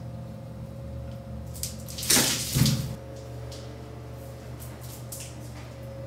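A short burst of splashing water lasting nearly a second, about two seconds in, over a steady low hum, with a few faint ticks.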